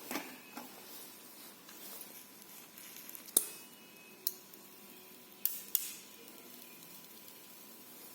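A new smartphone and its accessories being handled by hand: a handful of sharp clicks and taps, the loudest about three and a half seconds in, with faint rustling between them.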